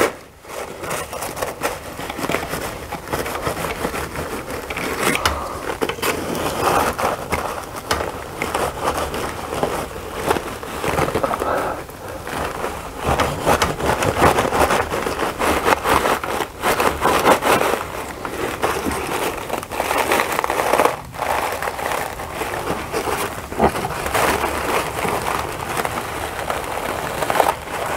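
A knife scraping and cutting at a papery wasp nest where it is stuck to wooden ceiling boards, with continual crackling and rustling of the nest's paper as it is worked loose. The strokes come in uneven runs; the nest is firmly attached and comes away only slowly.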